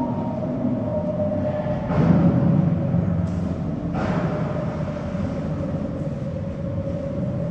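Dramatic soundtrack of a museum projection played over loudspeakers: a low rumble under a held drone tone, with two sudden heavy hits about two and four seconds in.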